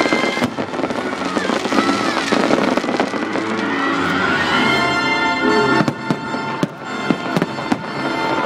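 Aerial fireworks bursting and crackling over the show's music, with several sharp bangs in the second half.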